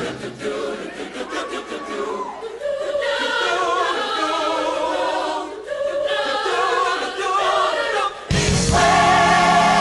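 Choir singing held notes with vibrato; a little after eight seconds in, a fuller, louder section with bass comes in.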